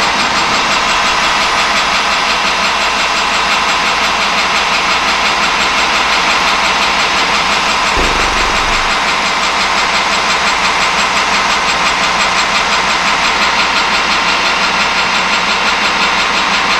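Metal lathe running steadily under power while a facing cut is taken across the end of a steel bar, the spindle and gear drive running with the tool cutting the face. A brief low bump about halfway through.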